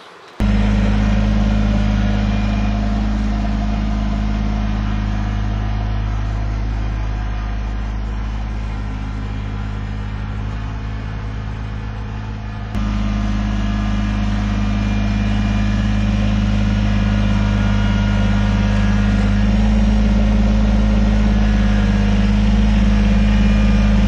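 Kubota compact tractor's diesel engine running at a steady speed, a constant low engine note with a sudden small shift in level about halfway through.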